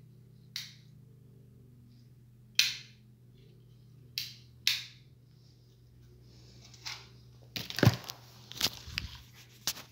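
Scattered short, sharp clicks and rustles, then a cluster of knocks and rustles about eight seconds in as a table lamp and its cord are handled close by. A low steady hum runs underneath.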